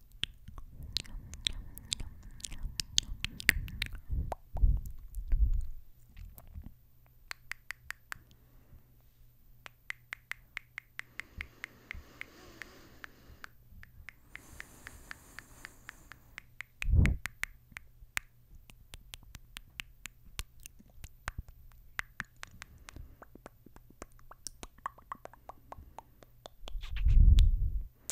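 Close kisses and smooches on a microphone: a quick run of sharp, wet lip smacks and pops, with a few louder low thumps of lips or breath against the mic around five seconds in, near the middle and near the end.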